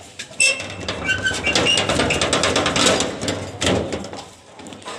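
Rusty iron sliding bolt drawn back and a metal door rattled open: clattering, scraping metal with a few short squeaks, starting about half a second in and dying away near the end.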